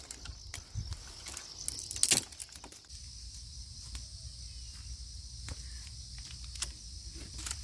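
Scattered clicks and snaps of twigs and firewood being handled to start a smoky campfire, the loudest about two seconds in, over a steady high-pitched chorus of night insects.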